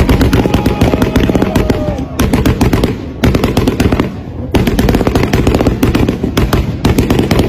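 Toyota Supra engine revving hard with a rapid, machine-gun-like stream of exhaust pops and crackles, in bursts that break off briefly several times.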